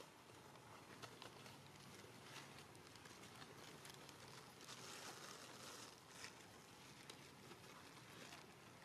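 Near silence: faint outdoor ambience with scattered small clicks and rustles.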